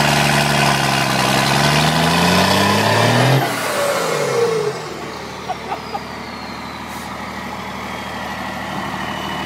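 Dodge Cummins 12-valve diesel engine, running with its turbo intake hose off, revved and held high, then let off about three and a half seconds in and dropping back to a lower idle. A high whistle falls slowly as it winds down.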